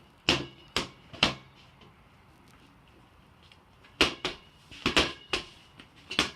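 A ball smacking against a wall and floor in sharp single hits, three quick ones, a pause of a couple of seconds, then another quick run of hits.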